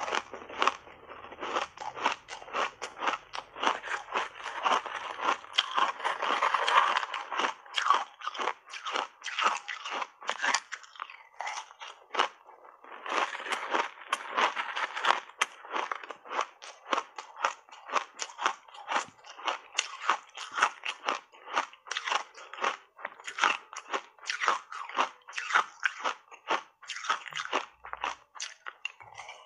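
Ice coated in thick matcha powder being bitten and chewed close to the microphone: a rapid run of sharp crunches that packs densest early on and again just after a short lull around the middle.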